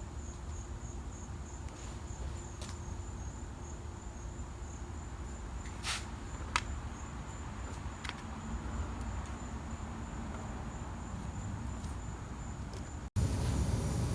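Crickets chirping steadily in the background, with a few faint sharp clicks from small metal parts being worked, as when seating valve keepers with a spring compressor. About a second before the end the sound cuts to a louder low rumbling noise.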